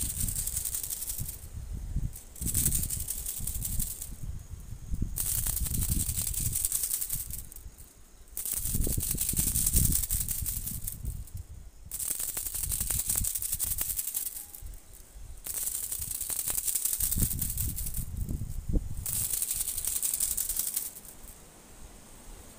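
A night insect trilling, a high rattling buzz that comes in repeated bouts of about two seconds with short pauses between them. Under it is rustling and shuffling through low leafy undergrowth.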